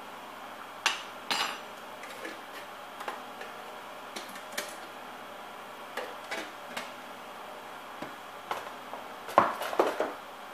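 Metal kitchen utensils clinking and knocking: scattered light taps and clinks, with the loudest cluster about nine seconds in, over a steady faint hiss.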